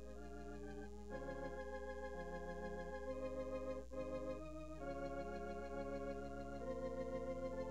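Organ playing slow, sustained chords that change every couple of seconds.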